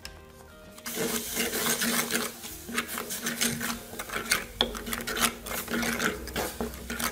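A spoon stirring and scraping a thick chili-and-garlic spice paste around the bottom of an earthenware clay pot, a fast, irregular rasping that starts about a second in.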